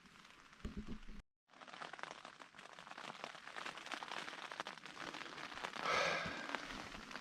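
Rain pattering on the tent, many small drops ticking on the fabric, slowly getting heavier, with a brief louder rush about six seconds in. Before it, about a second in, a few low thumps and then a sudden cut.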